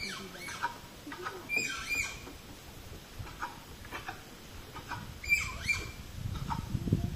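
Short, high squeaky animal calls, each sliding down in pitch, in a few clusters of two or three with pauses between.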